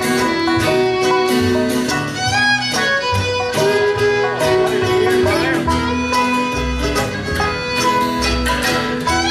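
Live bluegrass band playing, with the fiddle leading the melody over acoustic guitar, banjo and upright bass.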